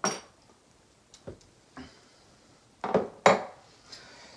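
Small metal pump parts and tools being set down and handled on a workbench: a ringing metallic clink at the start, a few light taps, then two louder knocks about three seconds in.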